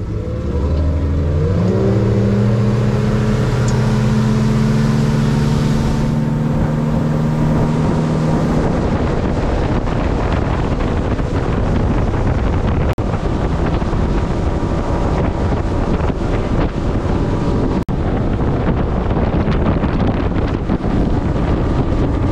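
Boat's outboard motor throttling up as the boat pulls away, its pitch climbing over the first two seconds, then running steadily under way. After about eight seconds the rush of wind and water over the hull takes over.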